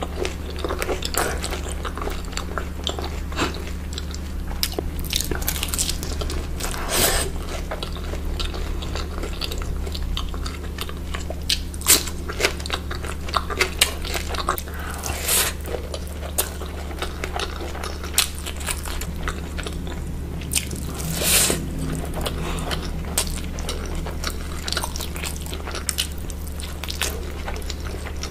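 Close-miked eating of curry and rice by hand: chewing with many short, sharp wet mouth clicks and an occasional crunchier bite, over a steady low hum.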